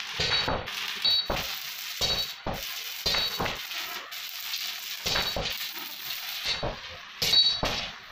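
Arc welding of flat steel strips onto a tubular steel chair frame: a steady crackling hiss with repeated sharp metallic clinks, some of them ringing.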